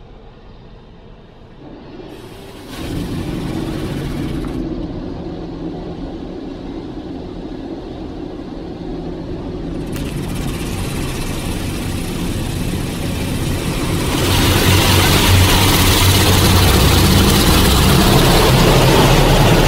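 Automatic drive-through car wash heard from inside the car: the wash machinery starts up with a low rumble, then water spraying and brushes scrubbing over the car in a steady rushing noise that grows louder about 10 s in and again about 14 s in.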